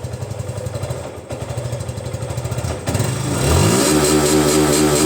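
Suzuki Gixxer SF 150's single-cylinder engine running through its stock exhaust: a steady idle, then revved up about three seconds in and held at higher revs, louder.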